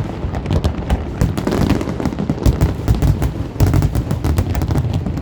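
Aerial fireworks display: a dense run of sharp bangs and crackles, several a second, over low booms from shells bursting close together.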